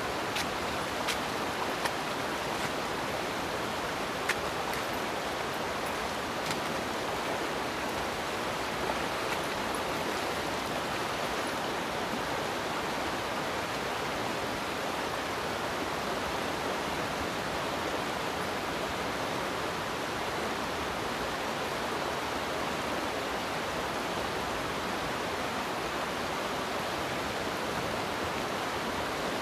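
Fast river current rushing steadily over rocks and riffles, with a few faint clicks in the first ten seconds or so.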